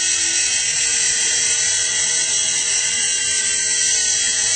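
Small remote-control toy helicopter in flight, its electric motors and rotor blades whirring steadily with a high-pitched buzz.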